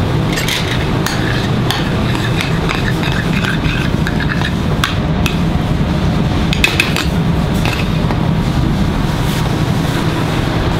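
Metal spoon stirring and scraping a thick béarnaise sauce in a small stainless steel saucepan, with irregular light clinks and scrapes against the pan, over a steady low hum.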